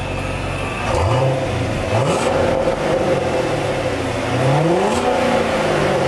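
Chevrolet Corvette C7 V8 on its stock factory exhaust, idling and revved three times: a short blip about a second in, another quick one near two seconds, and a longer rev near five seconds that climbs and falls back to idle.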